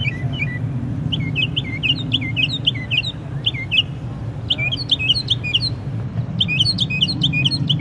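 A songbird singing phrases of quick, repeated chirping notes, with short pauses between phrases, over a steady low hum.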